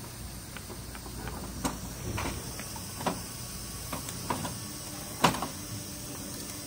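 Metal hand tools clinking and knocking in a steel tool-cart tray as they are picked up and moved, in scattered clicks with the loudest clank about five seconds in, over a steady low hum.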